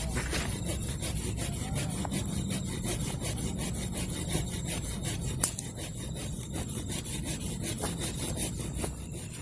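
Hand saw cutting through wood in steady, rhythmic back-and-forth strokes.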